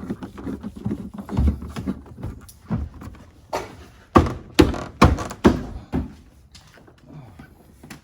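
Hand tool and plastic taillight fastener being worked by hand: a run of irregular sharp knocks and clicks, loudest about four to six seconds in.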